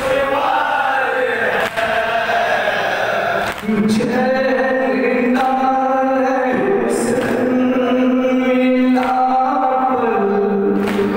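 Men's voices chanting a noha, an Urdu lament, in unison: a lead reciter on a microphone with a group of men singing along, holding long notes.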